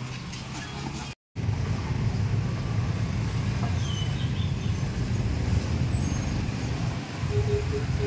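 Street traffic noise: a steady low rumble of passing vehicles, broken by a brief total dropout about a second in.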